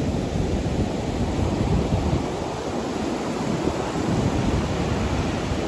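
Waves breaking on a sandy beach in a steady wash of surf, with wind rumbling on the microphone.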